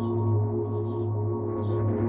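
Ambient background music: a steady low drone under sustained held tones, with soft high chiming notes about twice a second.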